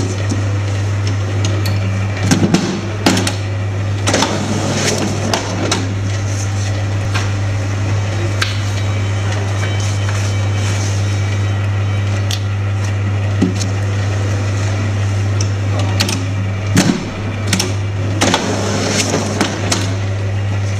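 Hand-operated A3 booklet binding machine being worked: irregular clicks, clunks and knocks of the mechanism and the paper, in clusters, over a steady low hum.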